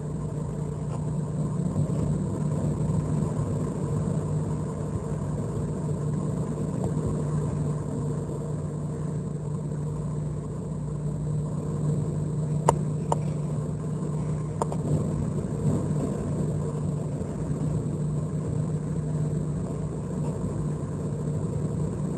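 Hurricane-force wind and driving rain, a steady loud rushing noise with a low rumble, and a few sharp knocks about halfway through.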